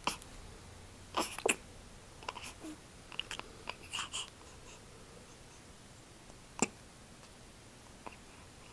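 Newborn baby hiccuping: several short, sharp hiccups at irregular intervals, the sharpest about two-thirds of the way through, with faint breathy sounds between them. The hiccups come from feeding too fast.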